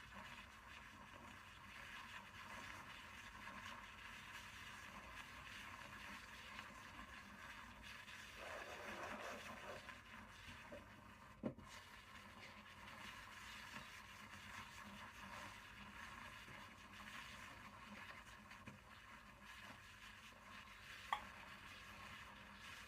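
Near silence: faint steady hiss of room tone, with a slight swell partway through and two soft clicks, one about halfway and one near the end.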